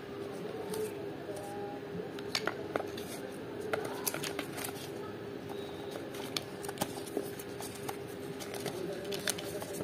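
Cardboard and paper handled in a smartphone retail box: scattered light clicks, taps and rustles as the inner tray and printed cards are lifted out, over a steady hum.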